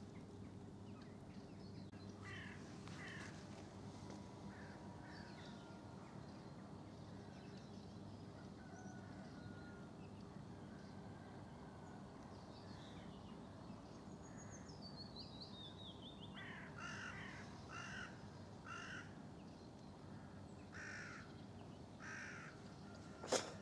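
Birds calling at dawn over a faint low hum: a descending run of notes, then a string of harsh, caw-like calls about one a second. A single sharp click comes near the end.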